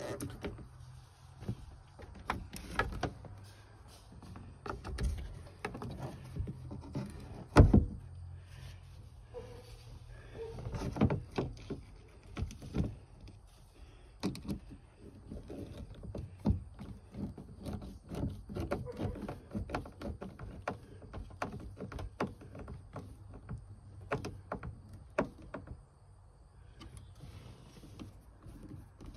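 Hand-fitting of an electric outboard's throttle control into a boat's dash: cables and the plastic throttle housing knocking and rattling against the hull side, and a screwdriver turning in its screws, heard as scattered clicks and taps with one heavy thump about eight seconds in.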